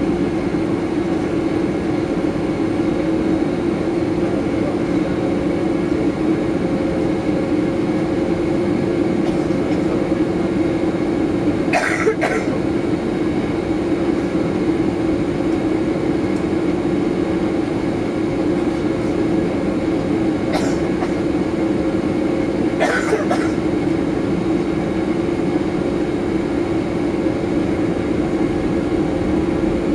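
Boeing 737-800 jet engines running at low taxi thrust: a steady drone with a held low tone, and a few brief clicks.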